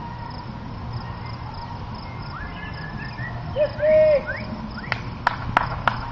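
Birds calling over a steady background of insects, with one short loud whistle-like note about two-thirds of the way through. Near the end a run of sharp taps or clicks begins, about three a second.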